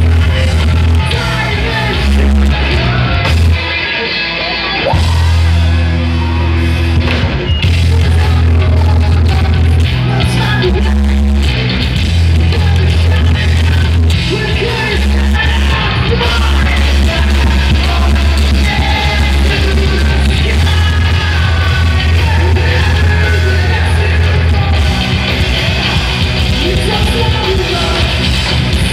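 Live heavy rock band playing loud through a stage PA: electric guitars, bass guitar and drums under a singer's vocals, with a heavy, sustained bass. The band eases off briefly about four seconds in, then comes back in full.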